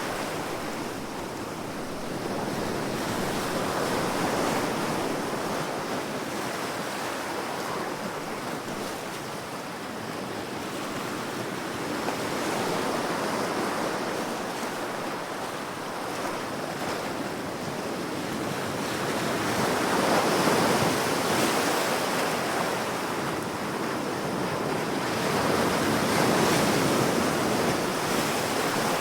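Ocean waves washing onto a shore, the surf swelling and receding every several seconds in a continuous rush.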